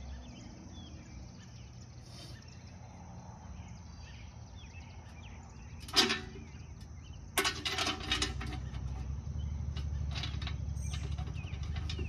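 Faint bird chirps over outdoor background, broken by one sharp knock about halfway through and a quick cluster of knocks a second later, then a low steady rumble.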